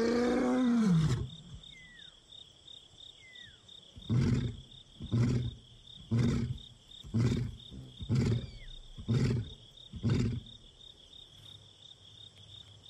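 Male lion roaring: a long moaning call that falls away about a second in, then seven short grunts about a second apart. It is a long-distance contact roar to a lost companion.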